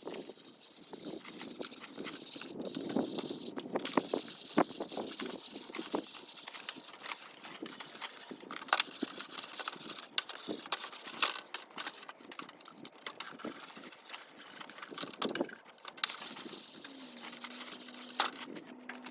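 Fine 220-grit sandpaper rubbed by hand over varnished pine boards in quick, irregular scratchy strokes, knocking down the wood grain raised by the first coat of varnish.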